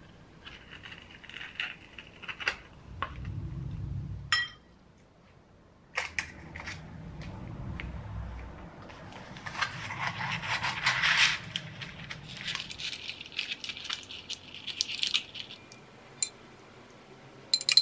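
Close handling sounds of food being packed into a wooden lunch box: sharp clicks of metal kitchen tongs and stretches of rustling and crinkling, loudest about ten seconds in. A few sharp clicks come near the end.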